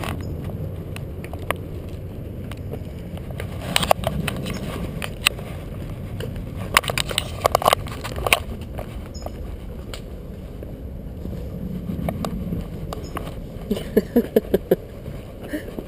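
Footsteps on a suspension footbridge's plank deck: scattered knocks and clicks over a steady low rumble, with a quick run of footfalls near the end.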